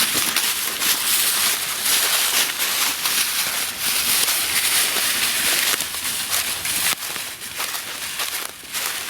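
Dense rustling and crackling of dry leaves and brush, heaviest for the first six seconds or so, then lighter and more scattered.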